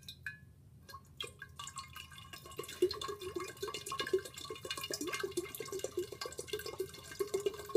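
Water poured from a plastic pitcher into a large empty glass fishbowl, splashing and trickling onto the glass bottom. It starts about a second in and runs until just before the end.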